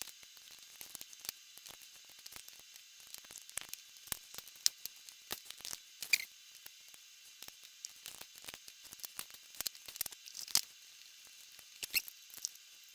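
Dense, irregular small metallic clicks, ticks and scrapes of a Securemme K2 dimple lock cylinder being taken apart by hand, its pins, springs and parts knocking about, over a faint steady hiss.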